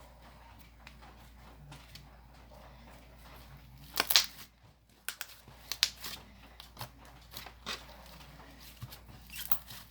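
Butter slime being squished and pressed by hand, giving soft sticky clicks and pops; a louder cluster of crackles comes about four seconds in, then single pops every second or so.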